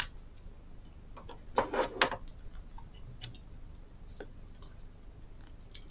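Small clicks and taps of hard plastic action cameras being handled in the hands and on the desk: a sharp click at the start, a few louder knocks about two seconds in, and scattered faint ticks.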